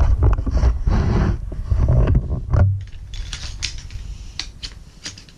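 Nylon storage bag rustling and being handled as a folding camp chair is pulled out. About two and a half seconds in this gives way to a run of light clicks and clinks as the chair's aluminium pole sections are unfolded and snap together.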